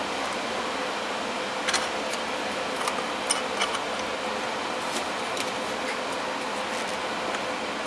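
Steady fan-like background hum, with several light clicks and clinks between about two and four seconds in as the TIG torch and the clamped stainless tube are handled.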